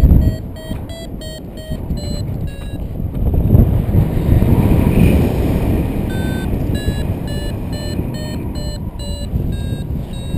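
Paragliding variometer beeping in short pips, about three a second, the climb tone that signals the glider is rising in lift, over loud wind rush on the microphone. The beeps stop for a few seconds midway and start again.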